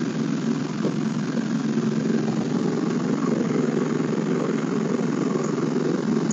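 Pickup truck engine running steadily, heard from inside the cab as an even low rumble.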